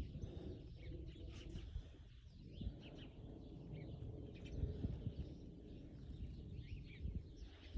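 Birds calling outdoors: many short, scattered chirps, faint over a steady low rumble.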